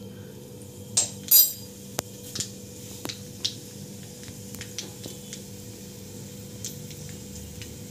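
Mustard seeds popping in hot mustard oil in an iron kadai: irregular sharp pops and crackles, a couple of louder ones about a second in, then many small ones. The seeds are spluttering, the sign that the oil is hot enough for tempering.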